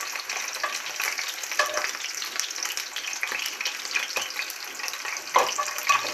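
Lamb liver frying in hot oil in a cast-iron skillet: a steady sizzle with crackling pops. A metal spatula scrapes and knocks in the pan as the pieces are turned, with a louder knock a little past five seconds in.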